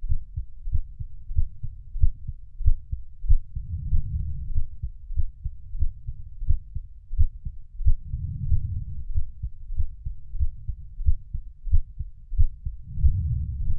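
Heartbeat: a steady rhythm of deep, muffled thumps, with a low whooshing swell about every four to five seconds.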